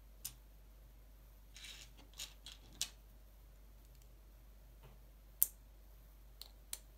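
Small plastic LEGO pieces being handled and pressed together in the fingers: a scatter of short, sharp clicks with a brief rustle about one and a half seconds in, the sharpest click about five and a half seconds in.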